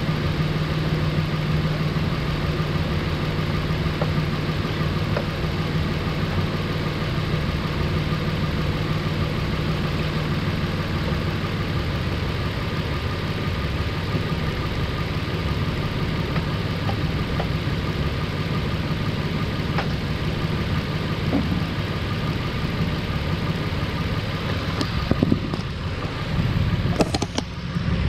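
Nissan 4.0 V6 (VQ40DE) idling steadily as it warms up, freshly fitted with new timing chains and tensioners and really quiet, with no tensioner whine. A few light clicks sound near the end.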